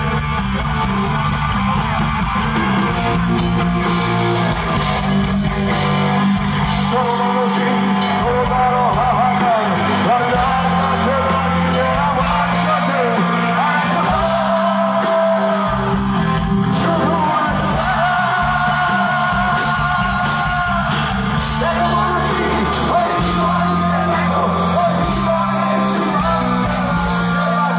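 Live Bangla rock band performing: a male singer over electric guitars, bass and drums, heard from within the audience in a large hall.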